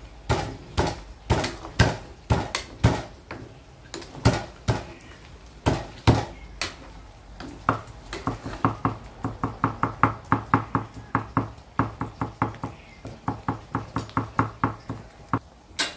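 Metal spatula scraping and knocking against a wok while stirring pork belly pieces rendering their fat. The strokes are spread out at first, then from about halfway they come quickly and evenly, about three to four a second.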